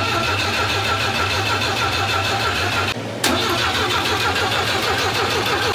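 Rebuilt Volvo B20 four-cylinder engine turning over on its starter motor without catching: two long cranks with a brief break about three seconds in. The twin SU carburettors have not yet filled with fuel, so the engine does not fire.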